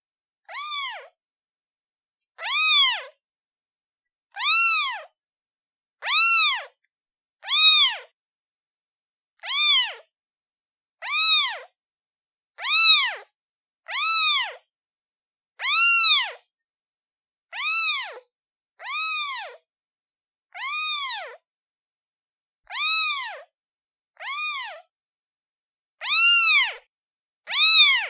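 Newborn kitten, a day old, meowing for its mother: a steady series of short, high meows, about one every second and a half, each rising and then falling in pitch.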